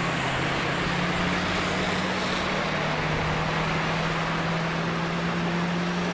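Slow-moving freeway traffic: a steady wash of engine and tyre noise, with one vehicle's engine droning at a steady low pitch that drops slightly about two seconds in.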